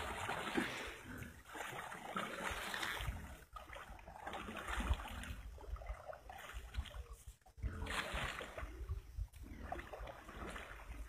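A wooden paddle splashing into pond water in repeated strokes, about one every two seconds, as a flat-bottomed wooden canoe is paddled.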